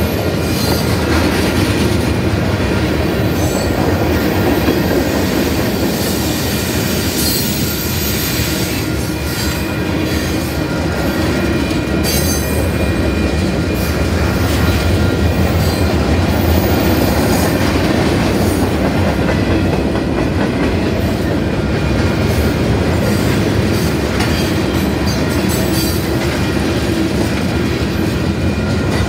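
Freight cars rolling past close by: a steady rumble of steel wheels on the rails, with a thin, steady high-pitched squeal from the wheels and occasional clacks.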